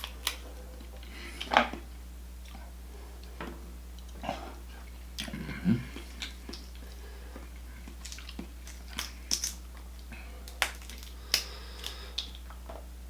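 Close-up eating sounds of a person eating a seafood boil: chewing, wet mouth smacks and a dozen or so scattered sharp clicks and crunches at irregular intervals, over a steady low hum.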